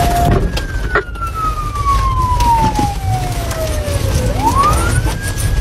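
Police car siren wailing, heard from inside the patrol car during a pursuit: one long, slow fall in pitch, then a quick rise back up near the end. A steady low engine and road rumble runs underneath.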